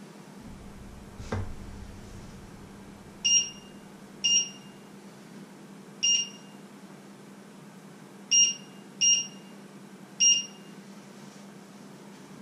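Touch controls of an electric hob beeping six times at uneven intervals as they are pressed, each a short high beep. A soft knock about a second in, over a steady low hum.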